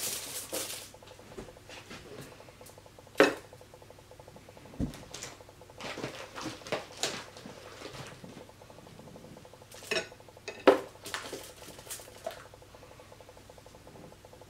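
Dishes and cutlery being handled: scattered, irregular clinks and knocks of plates and utensils.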